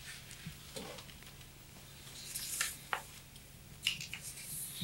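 Faint rustling of a sheet of paper being handled, with a few light clicks, over a steady low room hum.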